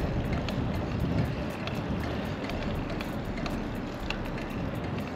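Wind rushing over the microphone together with tyre noise on the road from a bike riding at speed, a steady rumbling hiss.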